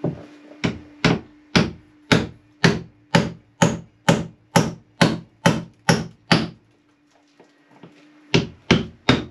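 Hammer blows driving fastenings into a wooden boat's hull planking. About two strikes a second in a steady run of a dozen, a pause of about two seconds, then four more near the end.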